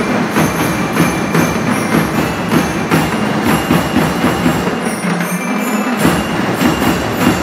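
A school marching band's drums beating a steady march rhythm, with a faint steady high tone above it. The deep drums drop out for about a second, five seconds in, then come back.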